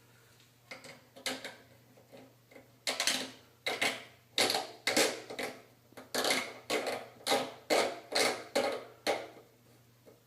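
A shower head being installed: a run of about a dozen short, sharp strokes, most coming about twice a second, as the fitting is worked onto its threads.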